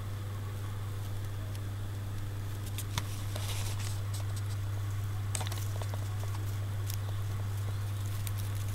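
A steady low hum, with scattered light clicks and taps of kittens' paws and claws moving about on a surface.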